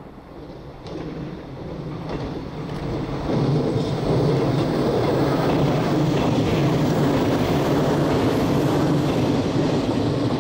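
Electric passenger train passing close by. Its running noise swells over the first few seconds as it approaches, then holds steady and loud as the carriages go past.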